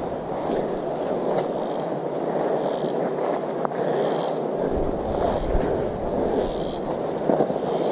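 Walking on a forest trail: steady footsteps and rustling, with a high buzzy call from the forest repeating roughly every second and a quarter. A low rumble on the microphone joins about halfway through.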